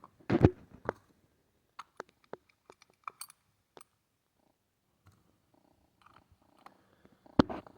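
Scattered small clicks and taps of screws and metal parts being handled and hand-threaded into an Echo 2511T chainsaw's cover, with a louder knock about half a second in and another near the end.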